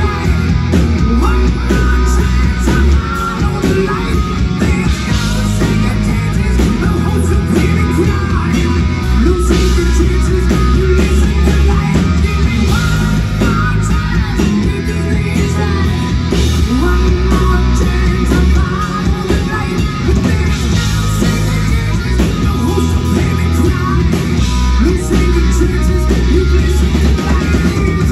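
Live rock band playing loud: electric guitar, bass guitar and drum kit, with a male lead vocalist singing over them.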